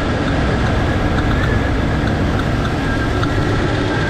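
Jeep Cherokee 4.0-litre inline-six idling steadily just after starting, with a faint tick from one spark plug boot that is not seated over its plug, so the spark jumps the gap.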